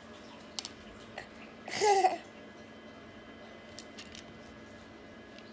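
A toddler's single short high vocal sound, about two seconds in, with a few faint clicks of toy beads and the cardboard box.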